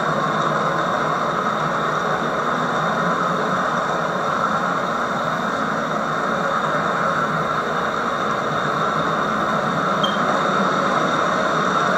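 HO-scale model freight trains running past: a steady whir and rumble of the locomotive motors and wheels on the track, heard through old VHS camcorder audio with tape hiss.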